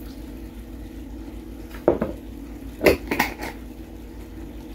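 A few sharp clinks and knocks from a glass jar of pepperoncini being handled over a plastic bowl: one about two seconds in, then a quick cluster of three around three seconds in. A steady low hum runs underneath.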